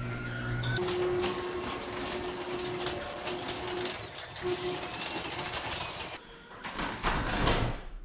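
Electric garage door opener running a sectional garage door along its tracks after a spring replacement. The motor hums, then the door rolls with a steady rattle and a faint whine. The running noise stops about six seconds in, leaving a few light clicks.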